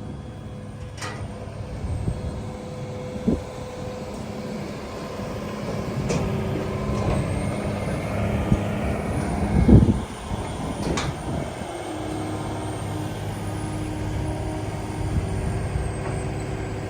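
A heavy machine's engine runs steadily while scrap is pushed out of a load, with scattered metal knocks and one loud clank just before the ten-second mark.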